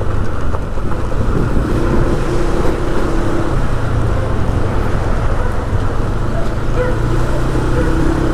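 A vehicle engine running at steady speed while riding along, with wind noise on the microphone.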